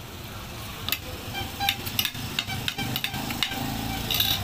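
Close-up eating sounds: sticky mouth clicks and lip smacks of chewing chicken feet adobo, with a spoon clinking on a plate.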